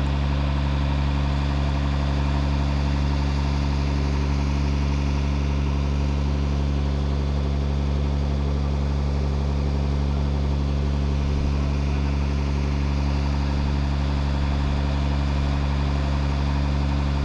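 Vehicle engine idling steadily, a deep, even hum that does not change.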